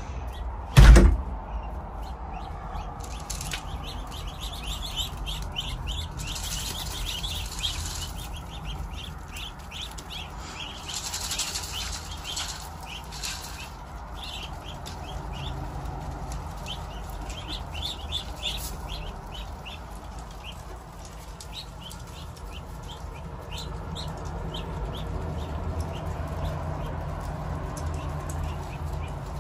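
A flock of ducklings peeping, many short high chirps overlapping and repeating while they feed. A loud thump about a second in.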